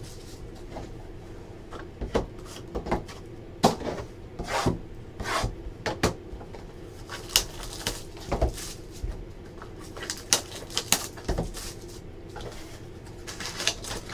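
Hands opening a trading-card box and pulling out the pack inside: scattered taps and clicks of cardboard with short rustles and crinkles of plastic and foil wrapping.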